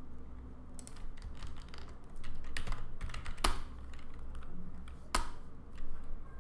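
Computer keyboard typing: scattered keystrokes, with two louder key strikes about halfway through and near the end, over a steady low hum.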